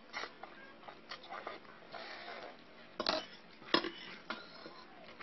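Slurping and chewing of instant ramen noodles, with two sharper, louder slurps or clinks a little after halfway.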